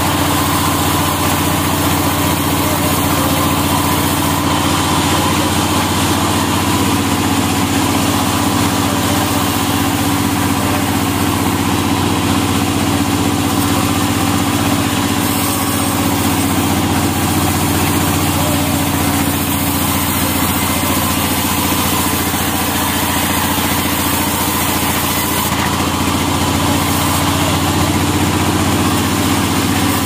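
Vertical band sawmill running steadily with its blade sawing lengthwise through a large log, a constant machine hum without breaks.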